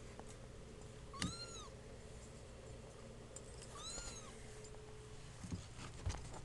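Two-week-old kitten mewing: two high, thin mews, about a second in and about four seconds in, each rising and then falling in pitch.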